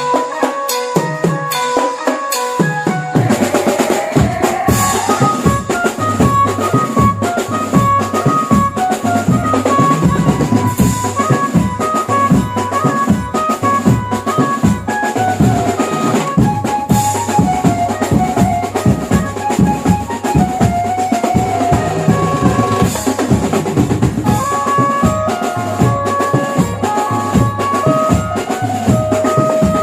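Mumbai banjo-party band music: a stepping melody line over a busy, driving drum-kit rhythm. The drums come in about three seconds in.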